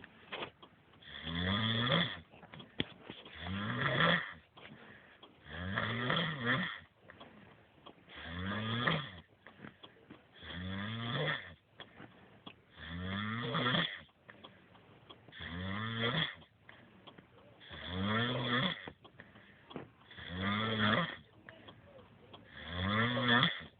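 A man snoring deeply in a steady rhythm, one snore about every two and a half seconds, ten snores in all, with quieter breathing between them.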